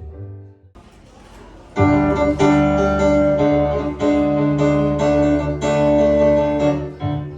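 Acoustic band music: after a short lull, piano chords come in strongly just under two seconds in and ring on in sustained, repeated chords.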